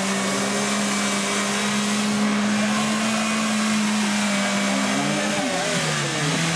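Suzuki Samurai off-roader's engine held at steady revs under load as it wades through a muddy water pit, with splashing; about five seconds in the revs drop and waver as the throttle is eased and reapplied.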